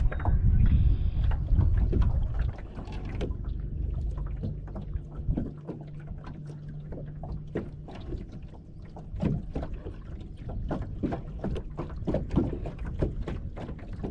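Sounds aboard a small fishing boat: wind gusting on the microphone for the first couple of seconds, then a steady low hum for a few seconds and a run of light, irregular ticks and taps.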